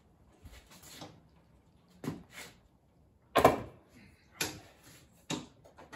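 A run of hard knocks and clunks, about one a second from two seconds in, the loudest about three and a half seconds in: things being handled and set down on a hard floor.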